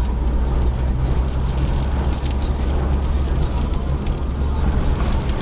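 Inside a smart fortwo's cabin in a dust storm: a steady low drone of wind and road, with wind-blown sand and small rocks hitting the car's body in scattered ticks.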